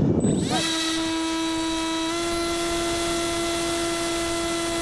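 Electric motor of a radio-control model aircraft giving a steady high whine, its pitch stepping up slightly about two seconds in as the throttle shifts. Rough wind noise on the microphone dies away about half a second in.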